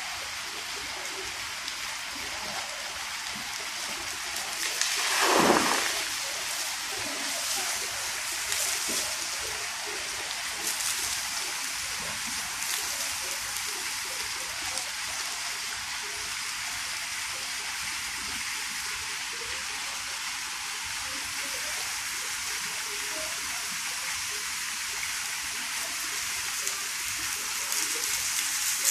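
Water from a plaza water feature falling and splashing onto wet paving: a steady hiss, with a louder whoosh that swells and fades about five seconds in.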